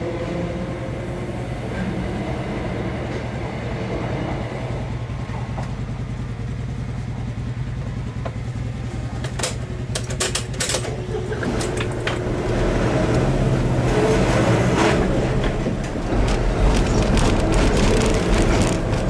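Passenger train running over a level crossing, heard from inside a waiting car over the car's steady engine hum. A few sharp clicks come about ten seconds in. The car then pulls away and its engine and road noise grow louder.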